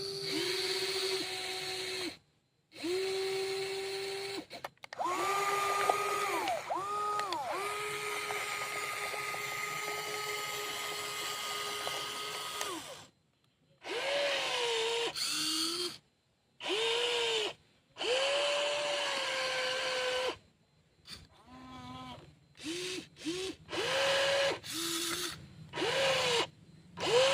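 Electric motors of a WL16800 remote-control excavator whining in stop-start runs, each one rising in pitch, holding, then falling away as the motor is let off. One long run near the start of the second quarter, then a string of shorter, quicker bursts toward the end.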